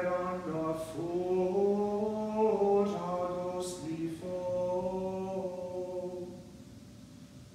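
Cantors chanting plainsong unaccompanied: held sung notes moving up and down in small steps, with the phrase ending about a second before the end.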